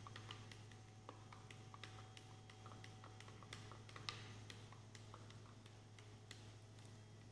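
Faint, irregular clicking of a stirring rod against a glass beaker as a thick Carbopol alcohol gel is stirred to work in a drop of triethanolamine, over a steady low hum.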